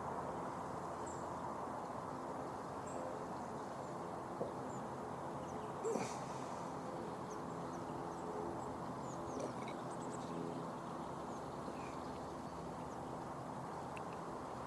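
Steady outdoor background hum at a lakeside, with faint high bird chirps dotted through it and a small knock about six seconds in.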